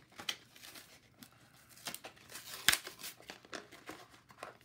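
A plastic-and-card retail package being worked open by hand, crinkling and tearing in scattered crackles, with one sharp snap about two and a half seconds in.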